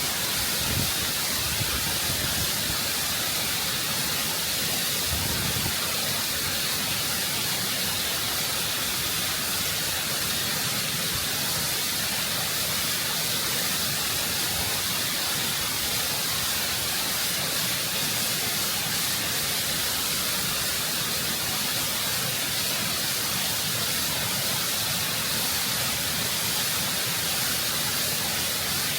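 Waterfall water rushing and cascading over rock at close range: a steady, full hiss of falling water and spray.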